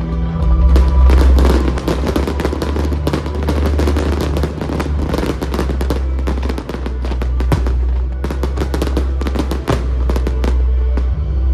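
Fireworks crackling in dense runs of sharp pops, one run through the first half and another after a short lull, over music with a steady low bass.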